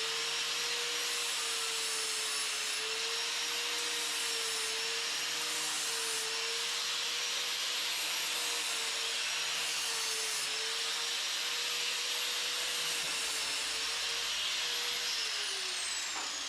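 Electric grinder running on the steel bumper to smooth the welds, its steady whine sagging slightly in pitch several times as it is pressed into the metal, then winding down near the end.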